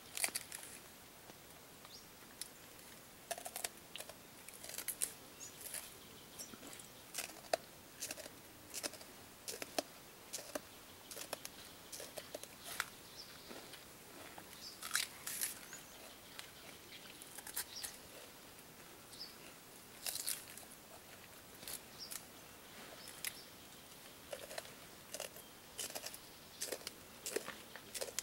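Mountain gorilla biting and chewing celery stalks: irregular crisp crunches and snaps, a few a second, with short pauses between bites.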